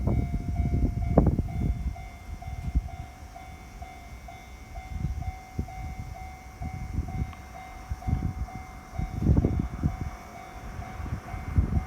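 Japanese level-crossing warning bell ringing in a steady rhythm of about two to three dings a second, over the low rumble of a passing JR Tokaido Line train that swells at the start and again about nine seconds in.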